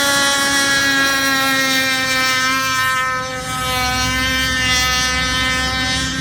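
Radio-controlled speedboat's motor running at speed, a loud, steady high-pitched whine with a slight dip in level partway through.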